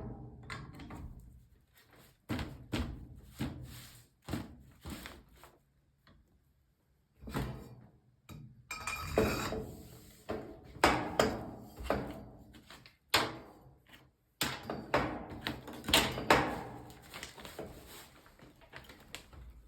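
A series of irregular knocks and clunks from hard parts and tools being handled and worked, with short pauses and one quiet gap early on.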